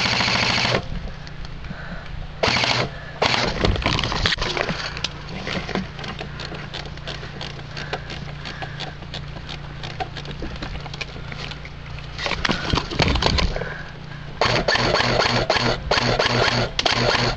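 Airsoft electric rifle firing in rapid full-auto bursts, laying down suppressing fire: a burst at the start, more a few seconds in, another about twelve seconds in and a long run of bursts near the end. In between, scattered clicks and the crackle of dry brush.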